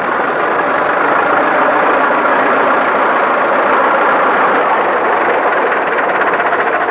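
McCormick-Deering TD-35 crawler tractor's four-cylinder diesel engine running steadily as the tractor moves along, a dense, even engine noise. A quick, regular beat of knocks shows through near the end.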